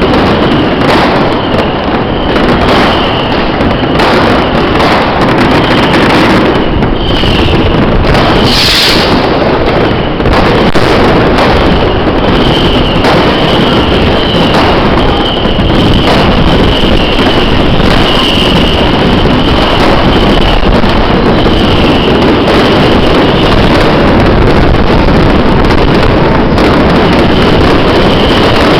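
Dense, continuous barrage of New Year's Eve fireworks and firecrackers: overlapping bangs and crackling, very loud on the microphone, with one especially sharp burst about nine seconds in. A high, steady whistle-like tone comes and goes through it.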